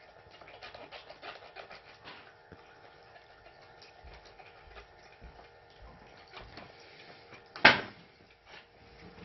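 Light clicks and clatter of plastic toy dishes being handled in a toy sink and dish rack, with one much louder knock near the end.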